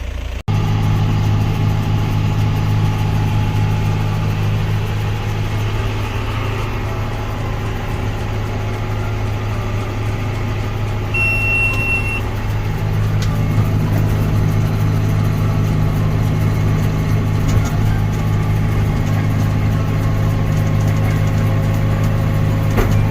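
Farm tractor's diesel engine running at a steady speed, with a short high beep about eleven seconds in.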